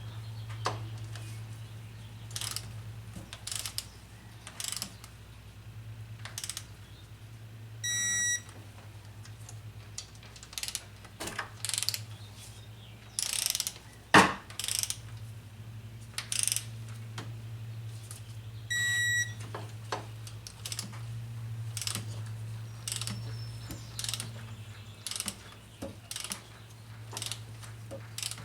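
Hand socket ratchet clicking in short, irregular strokes as bolts are worked on a Chevy 5.3L V8 engine during a head job. A steady low hum runs underneath, and a short electronic beep sounds about eight seconds in and again a little before the twenty-second mark.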